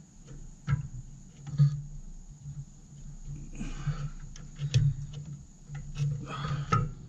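Scattered light metallic clicks and knocks as linkage rods are pushed onto a Ford 2000 tractor's carburetor by hand, with two short stretches of rustling handling noise.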